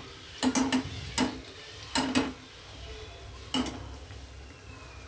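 A wire spider skimmer clinking against a stainless steel pan several times while pakoras are turned in hot oil, over a faint sizzle of deep frying.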